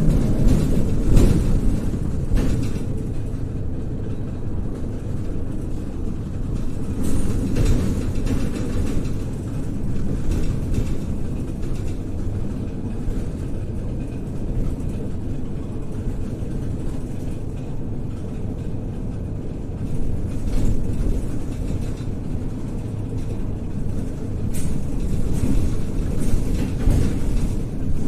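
MAZ-103 city bus driving, heard from inside the passenger cabin: a steady low engine and road rumble, with a few brief knocks and rattles.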